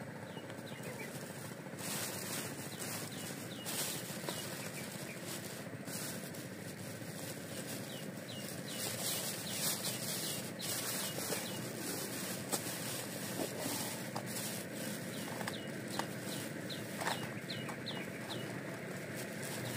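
A bird chirping over and over in short, high, downward-flicking notes, over a steady outdoor hiss. Scattered rustling and handling noise from a cloth sack being worked by hand.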